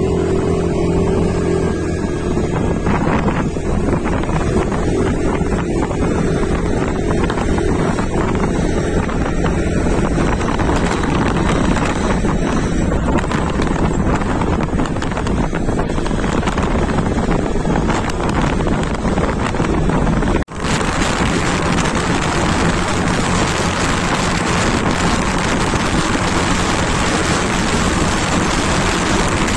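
A motor two-wheeler riding along, its steady engine drone mixed with wind buffeting the microphone. There is an abrupt cut about two-thirds of the way through, after which the wind noise is louder and more hissy.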